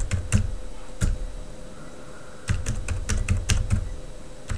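Computer keyboard keys being typed in two short runs of clicks, with a pause of about a second and a half between them.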